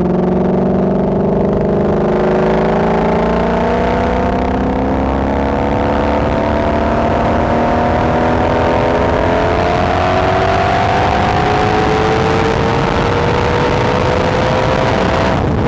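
2016 Shelby GT350's 5.2-litre flat-plane-crank V8 exhaust, pulling steadily with its pitch climbing slowly and evenly. Near the end it briefly cuts out and comes back at a lower pitch, as at a gear change.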